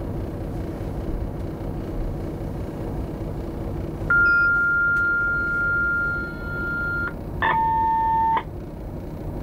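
Electronic signal beeps in a locomotive cab over the cab's steady low rumble: one high, steady tone held for about three seconds starting near the middle, then a lower tone lasting about a second.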